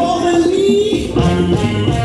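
Music with a bass line and a beat; a held melody note slides upward through the first second.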